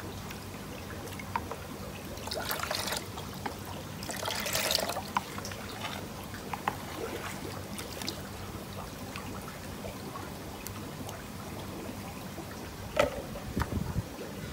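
Water trickling and dribbling over a wet concrete floor, with two brief louder splashes about two and four seconds in. A steady low hum runs underneath, and a few knocks come near the end.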